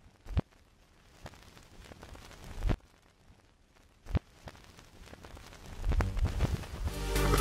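Intro sound design laid over the title render: three sharp, deep hits a couple of seconds apart, then a swelling rise that grows steadily louder near the end, building into music.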